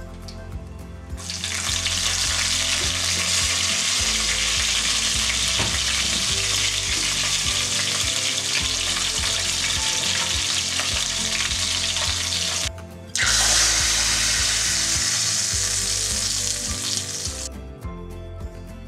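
Hot oil sizzling hard in a steel pan as curry leaves are dropped into a tempering of mustard seeds and dried red chilli, starting about a second in. It breaks off for a moment about two-thirds through, sizzles again, then dies away near the end. Soft background music runs underneath.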